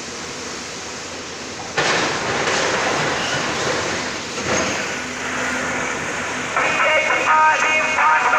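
A steady rushing noise that gets suddenly louder about two seconds in, then background music with plucked guitar begins near the end.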